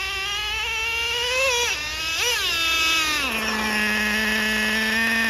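Nitro RC car engine whining as the throttle is blipped, the pitch rising and falling twice, then dropping about three seconds in to a steady high-pitched drone.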